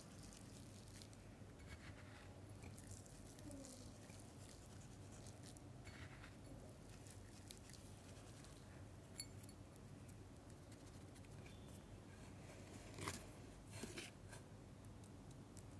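Faint patter of dry clay powder and crumbs being sprinkled onto wet mud paste, with two louder short sounds near the end.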